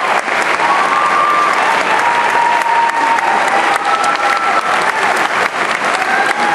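Large theatre audience applauding steadily, many hands clapping at once.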